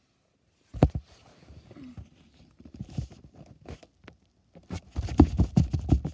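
Knocks and rustles of a plush toy dog being handled and tapped along a wooden floor: one sharp knock about a second in, lighter taps, then a quick run of thumps near the end.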